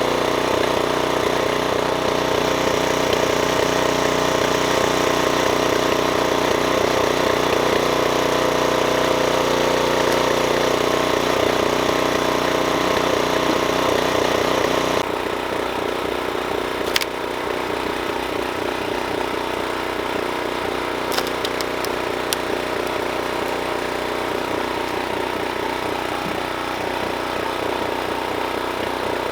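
Small gas engine of a log splitter running steadily, a little quieter from about halfway through. A few sharp cracks come in the second half, typical of wood splitting.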